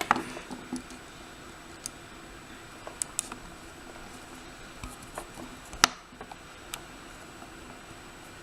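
A few scattered small metallic clicks and taps from tools working at a lock held in a vise, as the lock's push-in-and-unscrew back is being worked off. One sharper click comes about six seconds in.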